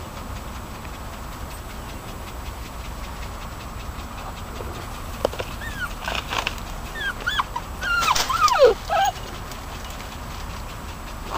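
Young dachshund whining and yelping in short cries that bend up and down in pitch, ending in one longer falling cry: a puppy giving voice while hunting a rabbit in thick cover. The cries start after several quiet seconds.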